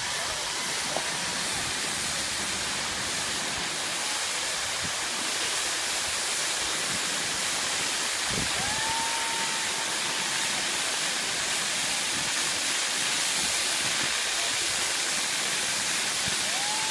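Pyrotechnic fountains spraying sparks with a steady, even hiss and no bangs. Two brief high tones rise and hold over the hiss, one about halfway through and one near the end.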